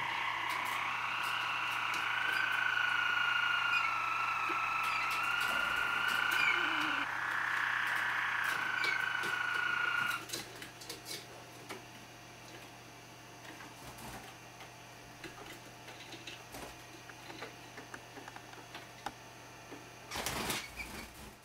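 Harz roller canary singing a long, continuous rolling song that cuts off suddenly about ten seconds in. After that come scattered light taps and clicks of the canaries' beaks pecking at the teapot, and a short rustle near the end.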